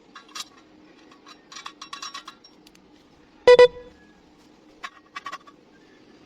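Steel pieces clinking and being tapped, with a series of light metallic ticks and one loud ringing clang about halfway through.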